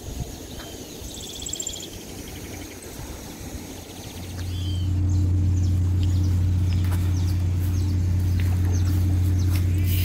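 Small birds chirping in short calls, then about four seconds in a steady low hum sets in and stays as the loudest sound, with scattered faint clicks over it.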